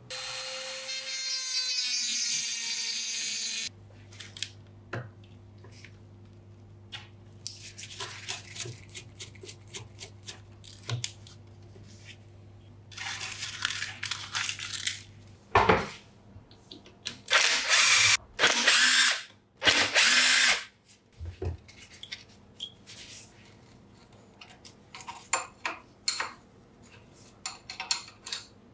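A small power tool runs with a high whine for a few seconds and cuts off abruptly. Light clicks and knocks of parts being handled follow. About halfway through come several short, loud bursts of hissing, grinding-like noise.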